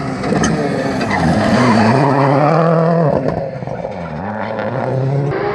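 Ford Focus rally car's engine revving hard through a tarmac corner, its note falling and rising several times with the gear changes as it slows into the turn and accelerates out.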